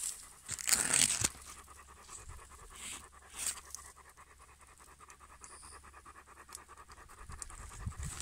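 A large dog panting rapidly and steadily through its open mouth. A short burst of noise comes about a second in.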